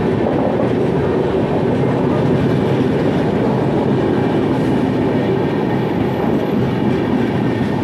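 Indian Railways passenger coaches rushing past at speed: a loud, steady rumble of wheels and bogies running over the track.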